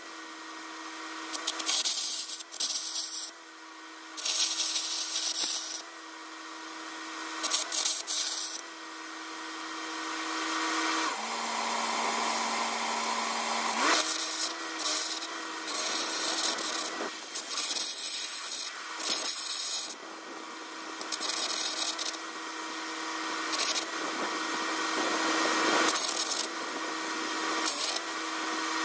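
Air carbon arc gouging with a 5/16-inch carbon at 600 amps, blowing out old welds: the arc and the air jet hiss in stretches of a second or more that stop and start many times, over a steady low hum.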